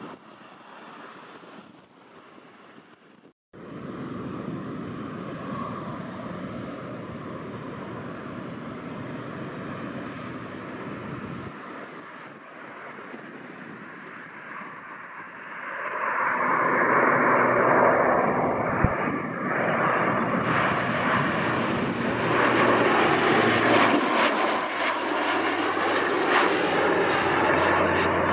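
Airliner engines heard as the aircraft passes: a steady rushing drone that swells sharply about halfway through and stays loud.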